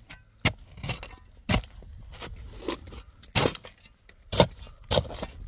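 A metal shovel scraping into dry, stony soil and tipping it back into a planting hole around a tree sapling. Several sharp scraping strikes of the blade come roughly a second apart, with soil and stones trickling in between.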